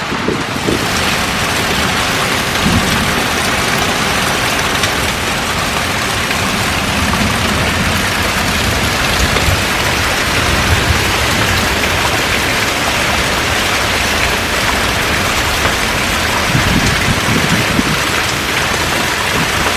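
Steady rain falling on a garden, a dense, even hiss of drops with no let-up.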